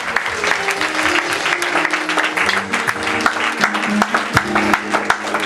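Congregation clapping in applause, over instrumental music with held notes.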